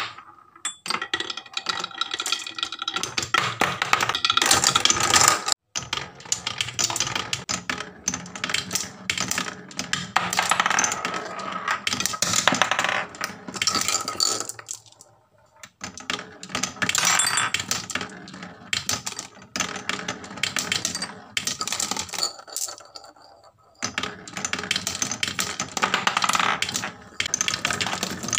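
Marbles rolling and clattering down wooden marble-run tracks: a dense rattle of clicks and knocks, with brief lulls about halfway and again near the end.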